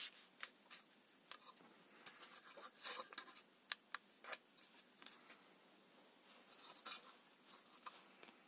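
Faint, scattered clicks, taps and short rustles of small objects being handled at a workbench, about a dozen, with a few louder ones near the middle.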